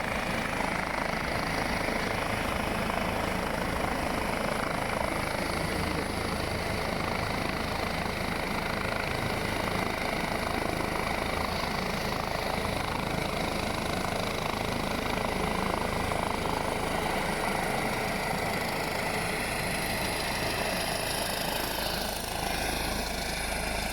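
Steady mechanical drone with a dense rushing noise, even in loudness throughout, like an engine or aircraft running continuously.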